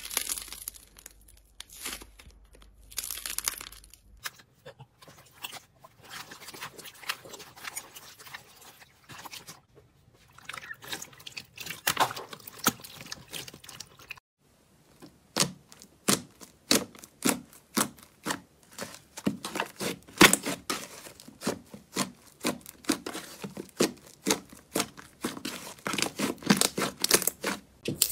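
Slime being squeezed, pressed and poked, with quick crackling clicks and pops. The clicking grows denser and louder in the second half.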